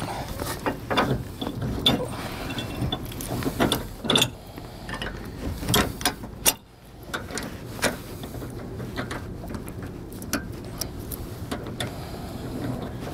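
Metal clicks and clanks as the arms of a Blue Ox tow bar are handled and latched onto the Jeep's base plate attachment points. The clicks are densest in the first six seconds and sparser afterwards.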